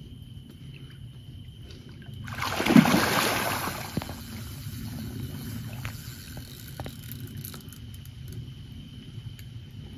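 Water sloshing around a person wading waist-deep in chest waders, with one loud splash about two and a half seconds in that dies away over a second or so.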